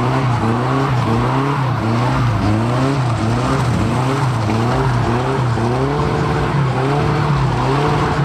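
A car engine revving up and down in a steady rhythm, about three swings every two seconds, over a continuous hiss of tyre noise.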